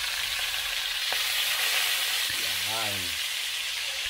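Pieces of salted eel frying in hot oil in a wok: a steady sizzling hiss that grows a little louder about a second in as more pieces go into the oil. This is a light pre-fry.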